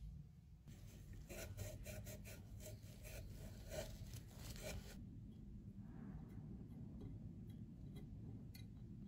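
Faint, quick rubbing strokes of a tissue wiping a pan in a plastic makeup palette. About five seconds in, these give way to the quieter scrape of a metal spatula working red makeup in a small metal pan.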